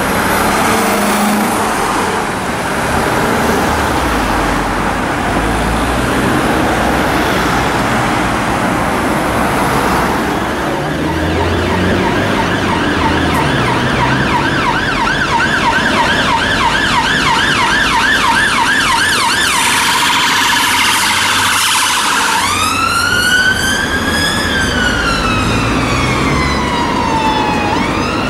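Ambulance sirens in traffic: road noise for the first ten seconds or so, then a fast yelp that sweeps up and down about three times a second, then from about two-thirds in a slow wail that rises and falls once.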